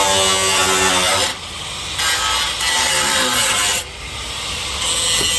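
A handheld electric power cutter cutting through the pickup's sheet-metal body panel inside the wheel arch, with a harsh, high-pitched grinding. It eases off twice, about a second in and again near four seconds, then bites back in.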